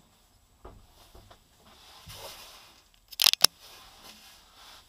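Rustling and soft knocks of the driver moving about inside a stationary rally car's cabin. Two sharp clicks come close together a little past three seconds in.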